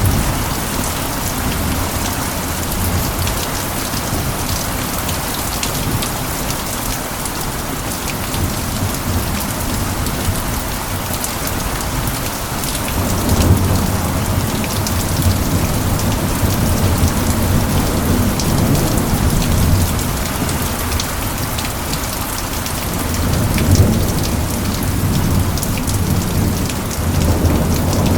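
Steady heavy rain pattering, with low rolling thunder rumbling in the background that swells about halfway through and again near the end.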